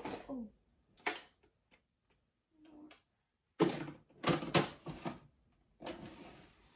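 Rummaging through clear plastic makeup organizer drawers: a drawer sliding and makeup items clattering and knocking, in a few separate bursts with short pauses between.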